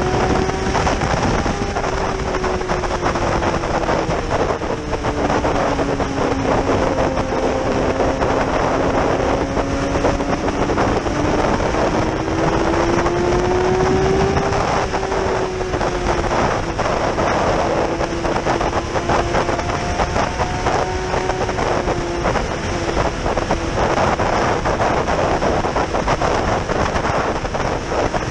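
Yamaha R6's inline-four engine running at speed under heavy wind rush on the microphone. Its note sinks slowly, climbs again about halfway through, then holds steady.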